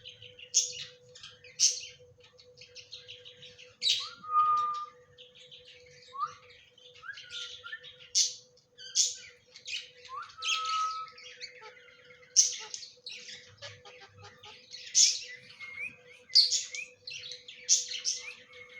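A parrot calling: a busy run of short, sharp high chirps and squawks, with a few brief held whistles mixed in.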